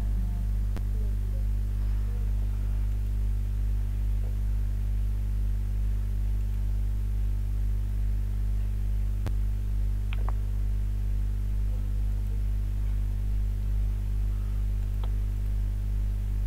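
Steady low electrical mains hum, with a few faint clicks.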